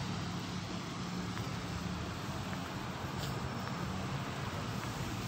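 Street traffic: cars and buses running and passing, a steady low engine hum under road noise.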